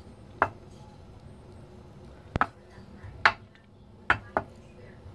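A wooden spatula knocking against a nonstick frying pan as it pushes melting margarine around: about six sharp, uneven taps, one of them a quick double, over a faint steady hiss.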